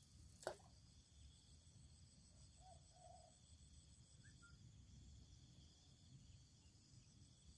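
Near silence: faint outdoor ambience with a steady high-pitched hum, broken by one brief sharp click about half a second in.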